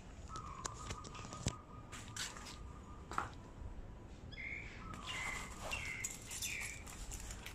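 Bird calls: a long held whistle, then a run of about four short chirps, with a few faint clicks.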